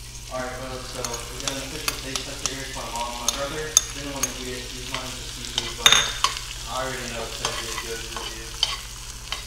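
Chopped vegetables and capers sizzling in melted butter in a cast iron skillet, stirred and scraped with a metal spoon that clicks against the pan again and again, one sharp click about six seconds in.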